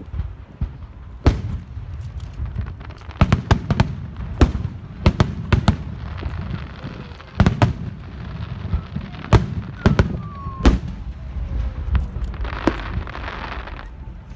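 Fireworks going off: sharp bangs at irregular intervals over a continuous low rumble, with a burst of crackling about twelve seconds in.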